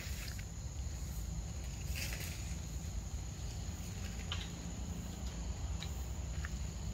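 Forest ambience: a steady high insect drone over a low rumble, with a few brief high chirps scattered through it.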